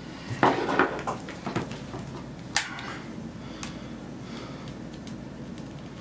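Handling noise of a USB cable being plugged into a small cylindrical power bank and the unit set down on a table: a few light clicks and knocks, the sharpest about two and a half seconds in.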